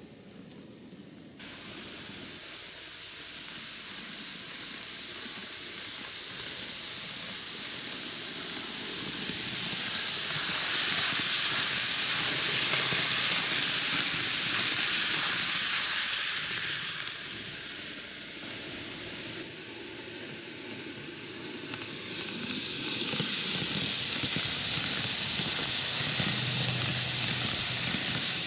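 An N-gauge model train, a 10-car Keio 9000 series set, running on TOMIX canted track: a steady whirring hiss of wheels on rails and motor that swells as the train nears. It gets louder twice as the train passes close.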